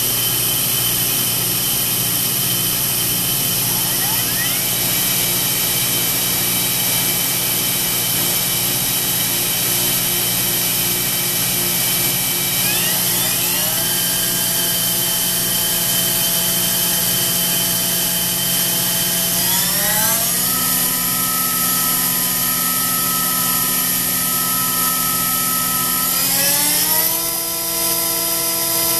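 High-speed electric motor and spindle on a test rig, running with a steady whine. Its pitch steps up four times as the speed is raised, to about 15,000 rpm by the end.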